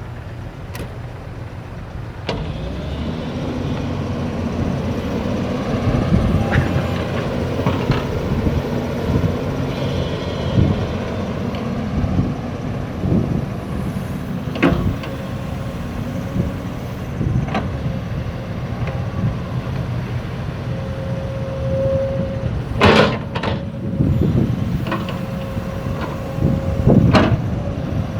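Backhoe engine running and working, rising in level after the first couple of seconds, with scattered clanks and knocks from the digging arm and bucket. The loudest knocks come near the end, and a brief whine shows up a little before them.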